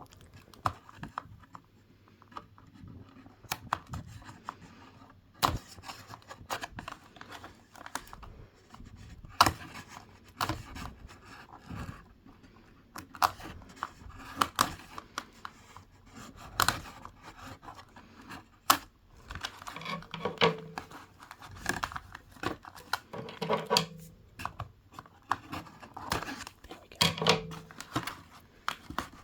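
Plastic doll packaging being handled, with irregular sharp clicks, snips and crinkling as the ties and plastic anchor holding a fashion doll's head in its box are cut and pulled free.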